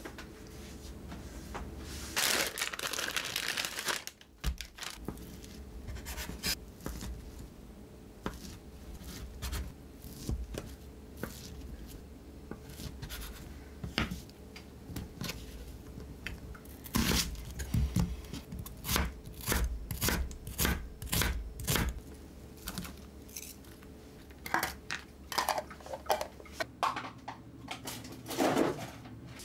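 A plastic food package torn open, then a kitchen knife cutting fish-cake sheets on an end-grain wooden cutting board: sharp knocks of the blade on the wood in quick runs, thickest a little past halfway through and again near the end.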